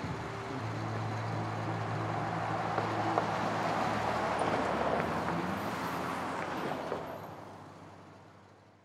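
Street traffic at an intersection: a vehicle engine running with a low steady hum while a car passes, swelling to its loudest about halfway through. The sound fades out over the last two seconds.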